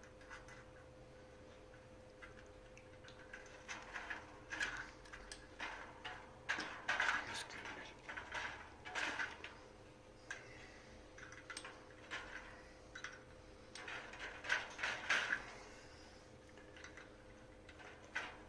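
Irregular small clicks, taps and scrapes of needle-nose pliers and a wire lead being handled against a sheet-metal heater plate, busiest through the middle and fading near the end, over a faint steady hum.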